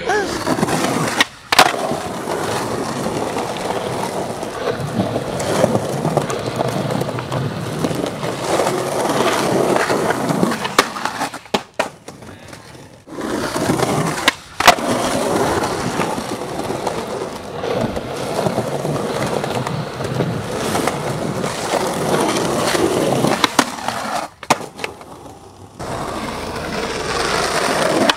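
Skateboard wheels rolling on concrete, broken by sharp clacks of the board popping and landing; the rolling stops abruptly a few times. Near the end the board scrapes along a concrete ledge.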